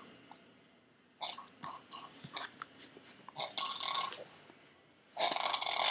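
A sleeping man snoring with odd throat noises: a string of short, irregular clicks from the throat, then a loud rasping snore that starts under a second before the end.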